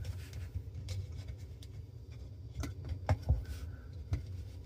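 Scattered light clicks, taps and rubbing of hands working plastic parts inside a Bosch dishwasher's sump, over a low steady hum.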